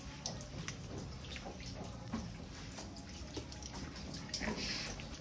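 Water dripping and splashing onto a wet concrete floor, as small irregular drips and trickles with a brief burst of splashing near the end.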